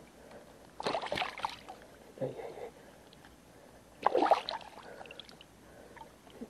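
Water splashing and sloshing as hands and a landing net are worked in the water while releasing a seabass: a splash about a second in, a smaller one after it, and the loudest about four seconds in.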